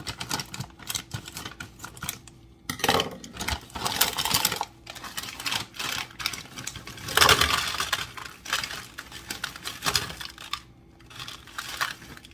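Plastic bag of fresh spinach being pulled open and handled, crinkling and rustling in irregular bursts of crackly clicks, loudest about three and seven seconds in.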